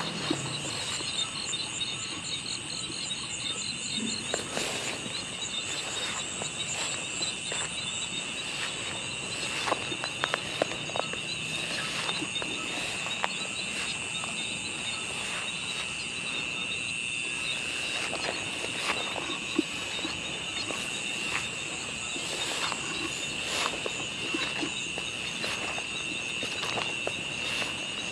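Night-time insect chorus: a steady high trill throughout, with a faster pulsing chirp above it during the first several seconds. Scattered light clicks and rustles of footsteps through grass.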